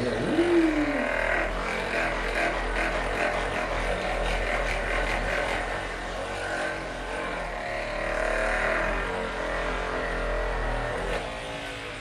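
Percussive massage gun running, its head hammering rapidly and steadily against the sole of a foot.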